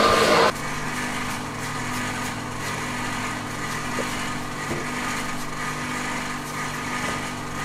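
A small engine running steadily with an even hum; a louder, busier sound cuts off abruptly about half a second in.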